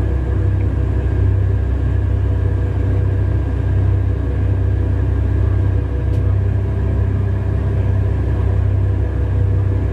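Heavy mining-machine diesel engine running steadily: a deep, even rumble with a low hum and steady tones above it.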